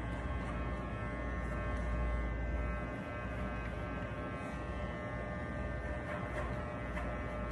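Corded electric hair clipper buzzing steadily as it runs against the side of the head, cutting hair.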